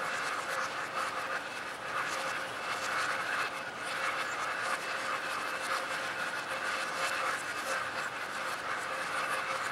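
Steady rain falling on a lake, a constant hiss of many small drop strikes on the water.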